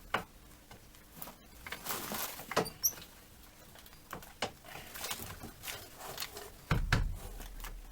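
Scattered knocks and clicks of hand work on a car's rear axle: the axle shaft and tools being handled as the shaft is refitted, with a heavier thud near the end.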